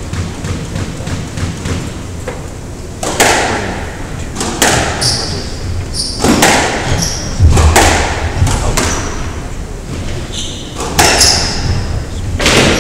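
Squash rally: the rubber ball hit hard by rackets and thudding off the court walls, a sharp crack about every second and a half from about three seconds in, with short high squeaks of court shoes on the wooden floor between the shots.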